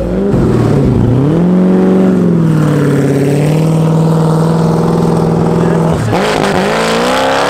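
Koenigsegg CCX twin-supercharged V8 running very loud as the car pulls away. The engine note rises, holds steady at a high pitch for several seconds, then drops sharply about six seconds in and climbs again.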